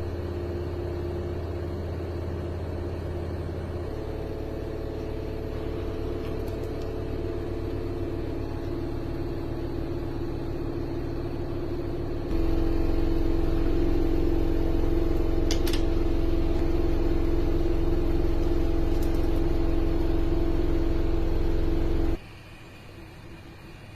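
Steady machine hum made of several held tones. It changes abruptly about 4 and 12 seconds in, growing louder at the second change, and cuts off near the end.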